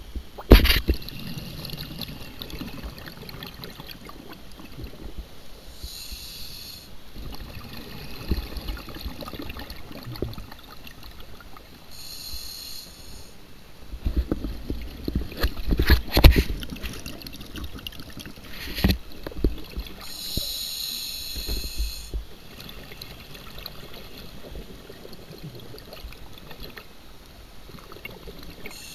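A scuba diver breathing through a regulator underwater: a short hissing inhalation every six to eight seconds, four in all, with low rumbling bursts of exhaled bubbles between them, the loudest a little past the middle.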